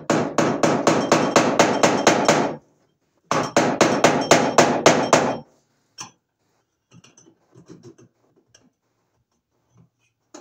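Rapid hammering with the side of a pair of pliers used in place of a hammer, about five blows a second. It comes in two runs of two to three seconds each, then one more knock and a few faint clicks.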